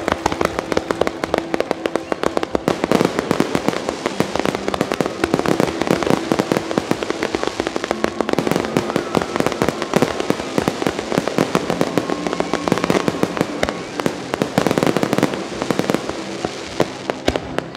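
Professional fireworks display: a continuous barrage of shell bursts and crackling, with sharp bangs coming several times a second.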